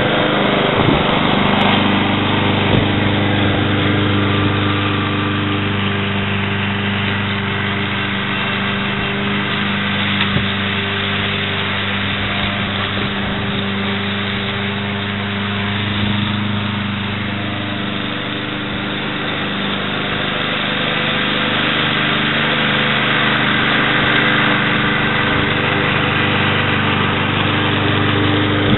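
Walk-behind lawn mower's Kohler Courage 173cc single-cylinder engine running steadily under load while mowing and bagging leaves. It grows a little fainter about two-thirds through, then louder again as the mower comes closer.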